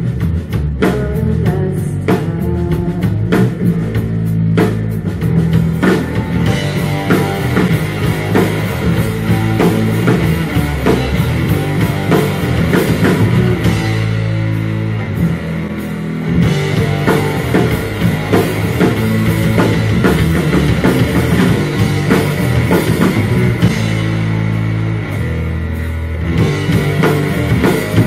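Rock band playing live with electric guitars over a drum kit, an instrumental passage with no singing. The low end drops out briefly about halfway through and again near the end.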